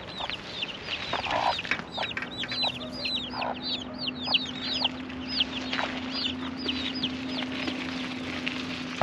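A flock of chicks peeping rapidly and continuously, with a brown hen giving low clucks now and then. A faint steady low hum sits under them from about two seconds in.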